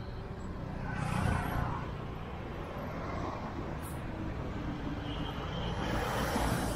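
Busy city road traffic: a steady low rumble of engines, with vehicles passing close by about a second in and again near the end.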